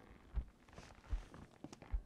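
Slow footsteps on an indoor floor: three dull, low steps about three-quarters of a second apart.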